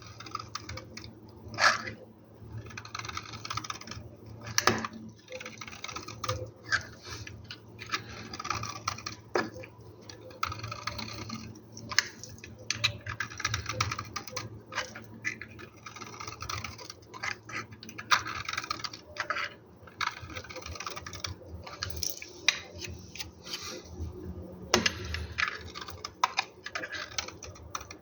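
Knife cutting through a bar of soap scored into small cubes: a dense run of crisp crackling crunches and clicks, with a few sharper, louder clicks.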